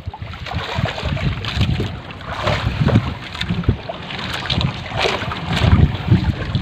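Wind buffeting the microphone over water splashing and the wet rustle of a fishing net being hauled by hand over the side of a small outrigger boat, with irregular splashes throughout.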